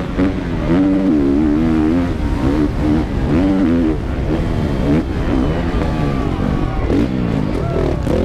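Honda CRF450R four-stroke motocross engine at race pace, heard up close from on the bike, revving up and falling back again and again as the throttle is worked through the track's jumps and turns.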